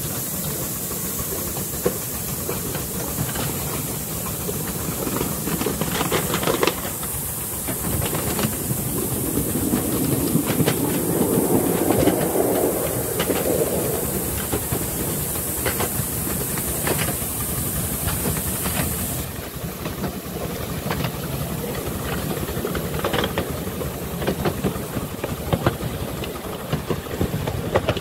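Miniature steam locomotive running along a small-gauge track, heard from the car behind it: a steady steam hiss over the rumble of the cars, with irregular sharp clicks from the wheels on the rail joints. There is a louder stretch about ten to fourteen seconds in, and the hiss drops back a little after that.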